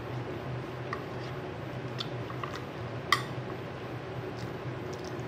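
A metal spoon clinking lightly against a soup bowl several times as soup is eaten, the sharpest clink about three seconds in, over a steady low hum.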